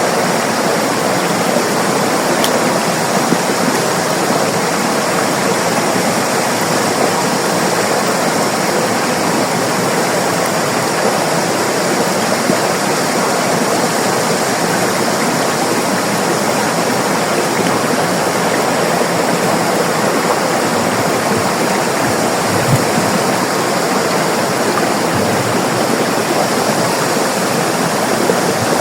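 River water rushing and splashing over rocks: a steady, full rushing noise.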